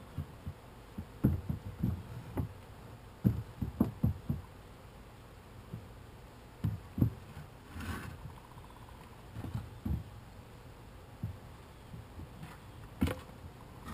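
Irregular low thumps and knocks from wooden beehive boxes and boards being handled close to the microphone, with a short hiss about eight seconds in and a sharp click near the end.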